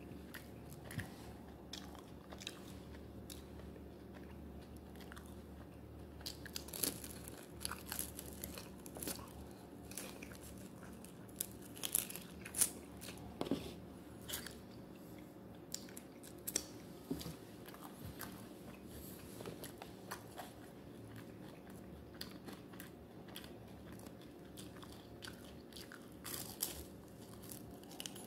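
Close-up eating of chicken wings: chewing, with irregular sharp crunches and wet mouth clicks, heaviest in short flurries.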